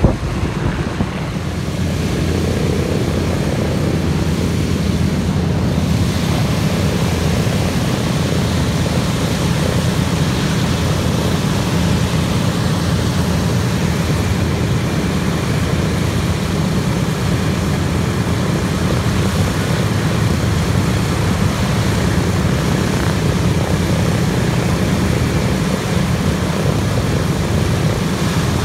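Radial piston engines of a four-engined B-24 Liberator bomber running as it taxis, a steady, continuous propeller drone.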